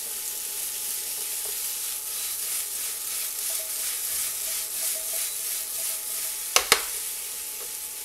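Diced potatoes, onion and green chile strips (rajas) sizzling as they fry in a nonstick pan, stirred and tossed with a metal utensil. Two sharp knocks come close together about six and a half seconds in.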